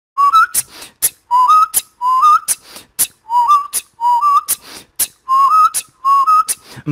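Beatboxer whistling a short note that slides upward, repeated about once a second, each followed by sharp snare-like mouth clicks in a steady beat.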